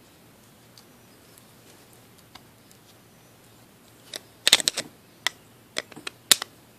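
About four seconds of quiet, then a quick run of sharp clicks and clacks of hard metal parts and tools being handled as scrap brass pieces are taken apart.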